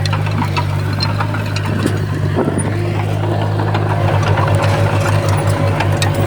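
Komatsu D20P bulldozer's diesel engine running steadily, with scattered sharp clicks over it. From about four seconds in, the engine note starts to pulse.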